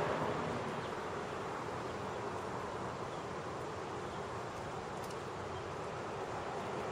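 Steady outdoor background noise: an even hiss with no distinct events, and a single faint tick about five seconds in.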